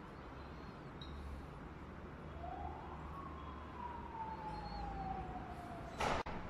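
A faint siren-like wail: one tone rises over about half a second, then slowly falls for about three seconds, over a low steady hum. A brief loud crackle about six seconds in cuts off abruptly.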